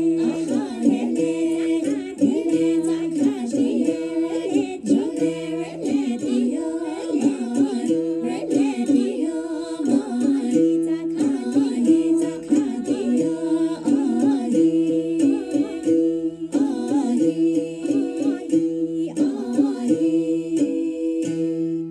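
Women's voices singing a traditional Chakhesang Naga folk song (Li) in close harmony over a steady held drone note, with the one-stringed tati plucked alongside.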